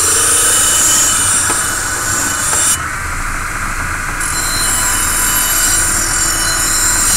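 Bench-grinder wire wheel scrubbing oxide off a high-carbon steel knife blade back to bare steel: a loud, harsh metallic hiss. It eases for a little over a second about three seconds in, as the blade comes off the wheel, then resumes.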